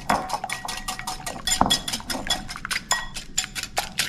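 Egg wash being whisked by hand in a bowl: a utensil clinks rapidly against the side of the bowl, about six strokes a second, each with a slight ring.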